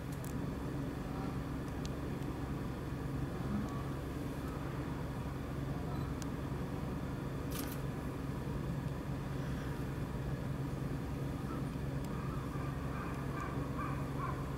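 Steady low background hum with a few faint clicks.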